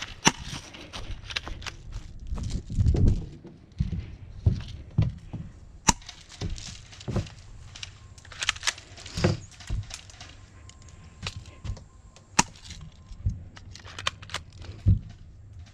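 A string of irregular sharp cracks and snaps, with low thumps in between.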